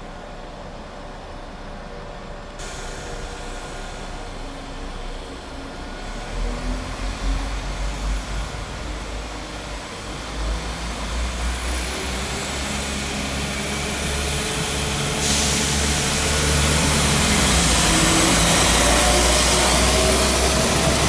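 A West Midlands Railway Class 172 Turbostar diesel multiple unit approaches and runs past along the platform. Its diesel engines and its wheels on the rails grow steadily louder, and the engine note rises near the end.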